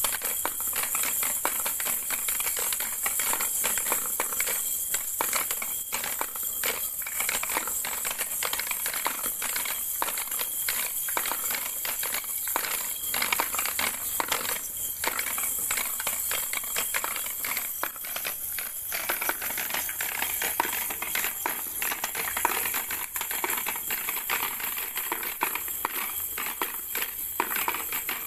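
Hard plastic balls rolling and clattering down the spiral plastic ramps of a ball-drop tower toy: a steady stream of rapid clicks and rattles as balls drop from tier to tier and land at the base.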